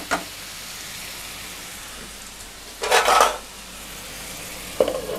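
Chicken pieces in a thick masala sizzling steadily in a hot nonstick kadai. About three seconds in, a steel ladle scrapes and stirs through the pan once, and a few light knocks follow near the end.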